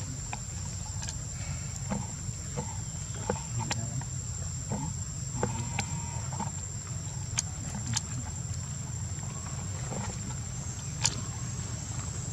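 Outdoor ambience: a steady high-pitched insect drone over a low rumble, with a few sharp clicks and ticks scattered through.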